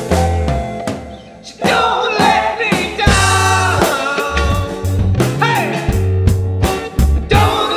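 A small rock band playing live, with bass guitar and electric guitar under a sung melody. The band drops out briefly about a second in, then comes back in at full volume.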